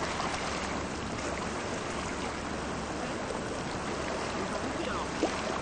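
River water flowing: a steady, even rushing noise.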